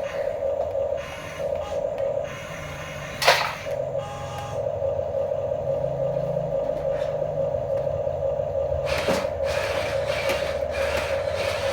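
Electric drive motors and plastic gearboxes of a radio-controlled model construction vehicle running with a steady whine. A sharp knock comes about three seconds in, and a lighter one about nine seconds in.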